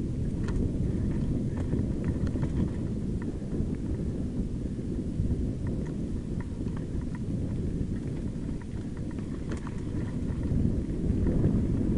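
Wind rumbling on the microphone of a helmet or chest camera as a mountain bike rolls down a rocky gravel trail, with scattered clicks and rattles from the tyres on loose stones. The rumble grows louder near the end as the bike picks up speed.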